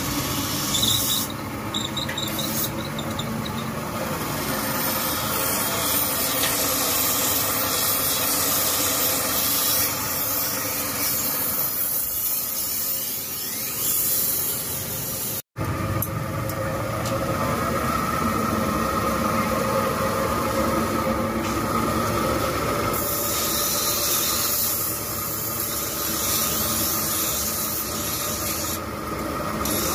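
Motor-driven grinding wheels spinning while steel scissor blades are held against them: a steady hissing rasp of metal being ground over the hum of the running motors. The sound drops out for an instant about halfway through.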